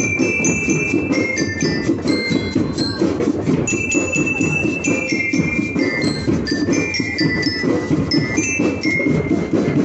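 Marching band playing: bell lyres ring out a quick melody in bright metallic notes over dense, pulsing band percussion.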